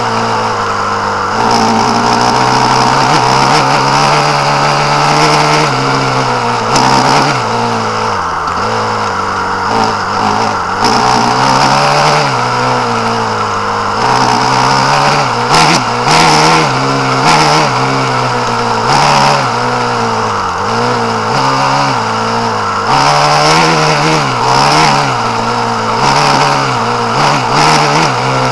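Small off-road motor vehicle engine running hard, its pitch rising and falling over and over as the throttle is opened and closed across rough ground, with wind noise over it.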